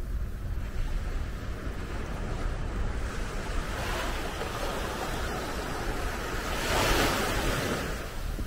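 Small waves lapping onto a sandy beach. One wash of surf swells in about halfway through, is loudest near the end, then fades. Wind rumbles on the microphone throughout.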